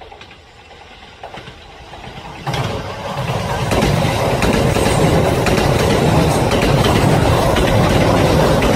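Train running on the rails, its noise quiet at first, then stepping up sharply about two and a half seconds in and building to a loud, steady rumble with scattered clicks.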